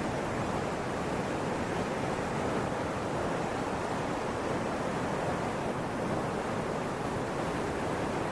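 Fast-moving floodwater rushing through a street: a steady, even rush.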